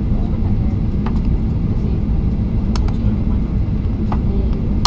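Steady low rumble of a Boeing 737-800 airliner heard from inside the cabin, with a few faint clicks.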